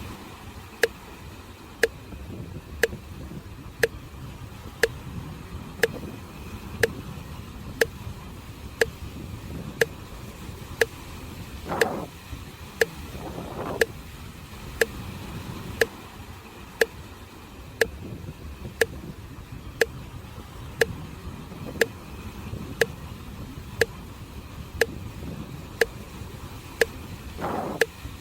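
Low, steady wash of sea waves on the shore, with a sharp tick once a second throughout, like a metronome or clock pacing the breathing. A couple of brief swells rise out of the wash in the middle and near the end.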